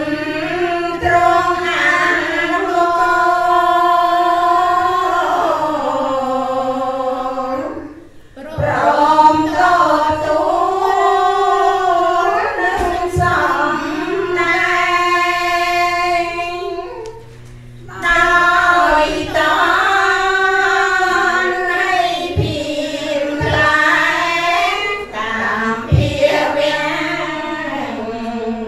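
Group of laywomen chanting a Khmer Buddhist devotional chant in unison through microphones: a slow, melodic chant with long held notes. It runs in three long phrases, with a short breath-pause about 8 seconds in and another about 17 seconds in.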